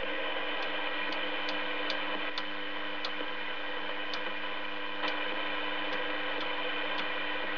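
Braun SE 411 CB radio giving steady receiver hiss and hum while its channel selector is turned, with a short click at each channel step, one or two a second at irregular spacing.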